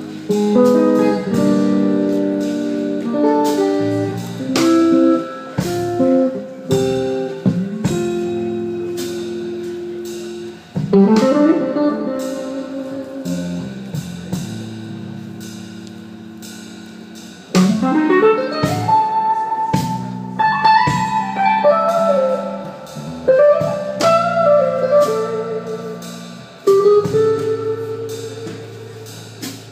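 Electric guitar played alone: picked chords and single notes left to ring and fade, with two long upward slides partway through and bent, wavering notes after them.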